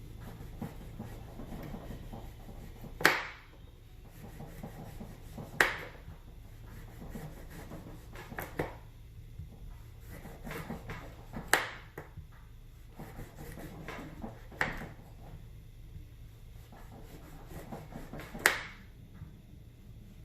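Kitchen handling with about six sharp knocks of a utensil on a hard surface, roughly three seconds apart. Quieter rubbing and handling fill the gaps over a steady low hum.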